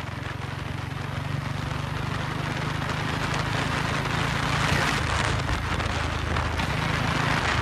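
Royal Enfield 350's single-cylinder engine running while the bike is ridden, with wind rushing over the microphone. The engine note eases off a little past halfway and picks up again near the end.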